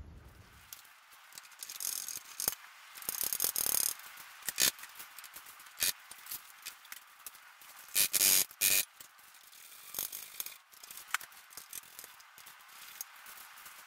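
Hand tools clicking, rattling and scraping on metal fittings while a steering rack is unbolted from a car chassis, with a few short, louder rattling bursts about three and eight seconds in.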